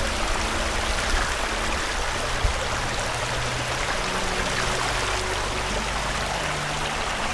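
Creek water running steadily, a continuous rushing with a low rumble underneath.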